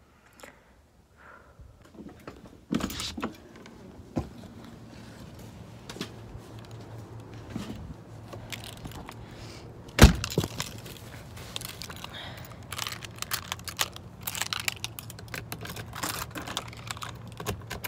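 Handling noise and rustling as a person moves about and steps out of a truck camper, with scattered clicks and knocks, one sharp loud knock about ten seconds in, and a run of small clicks and metallic jingles in the second half.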